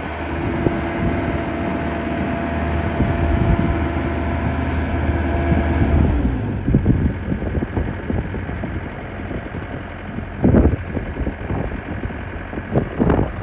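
Takeuchi TB175 compact excavator's diesel engine running with a steady drone. About six seconds in the steady note drops away, and a run of irregular clunks and knocks follows, the loudest about ten and a half seconds in.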